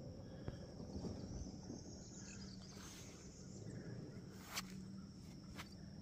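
Faint outdoor ambience: a steady high insect drone over a low rumble, with a couple of sharp clicks in the second half.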